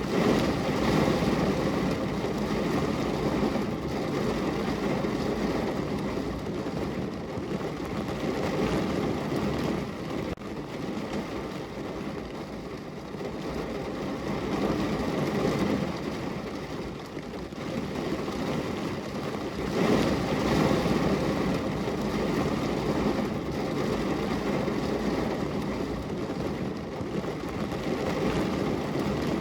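Heavy rain falling on a car's roof and body, heard from inside the car: a dense, steady patter that swells and eases in waves.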